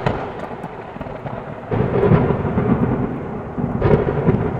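Thunder sound effect: rolling thunder rumbles on, with a fresh loud crack and rumble about two seconds in and another near the end.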